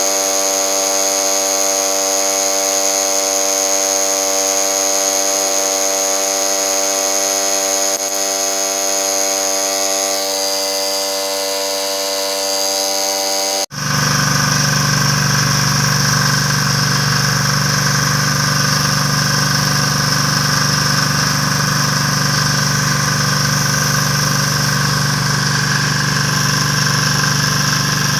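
A steady machine hum made of many even tones runs until a sudden break just past the halfway point. After the break, a small diesel generator engine, a Kipor, runs steadily at a constant speed.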